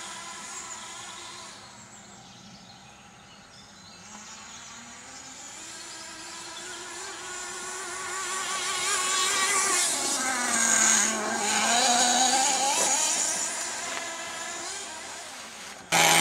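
HPI Firestorm nitro RC truck's small two-stroke glow engine buzzing as it is driven, fading a little then growing louder. Around two-thirds of the way through the engine pitch drops and climbs back up as the throttle is let off and opened again, and just before the end the sound jumps suddenly louder.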